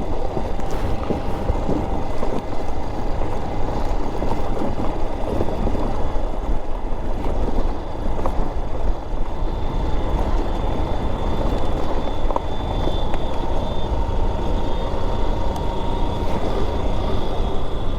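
Honda XR trail motorcycle running along a dirt road, with dense noise that is strongest in the low end. Over it sits a steady high whistling drone from insects, clearest in the second half.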